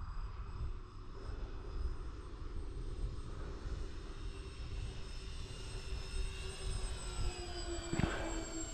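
Electric motors and propellers of a four-engine RC foam B-24 Liberator model in flight: a steady whine that grows louder near the end as the plane passes closer, over a low rumble. A single short tick about 8 seconds in.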